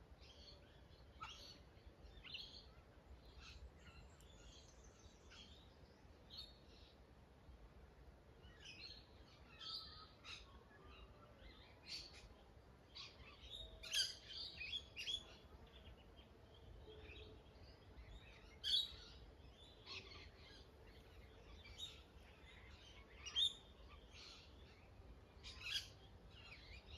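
Wild birds singing and calling: many short chirps and calls from several birds at once, quiet overall, with a few louder calls about halfway through and near the end.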